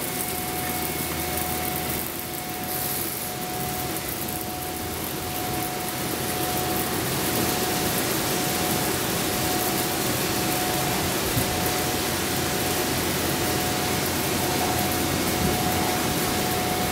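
N/S Car Dealer 5T car wash running: tall cloth wash brushes spinning with water spray, under a steady motor whine. It grows louder about seven seconds in as the brush scrubs the front of a vehicle.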